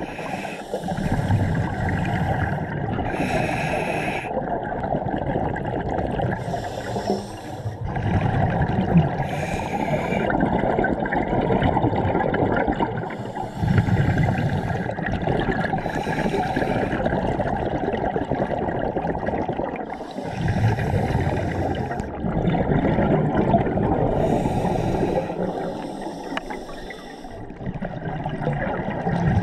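Scuba diver breathing through a regulator underwater: hissing inhalations alternate with rumbling bursts of exhaled bubbles, about one breath every three seconds.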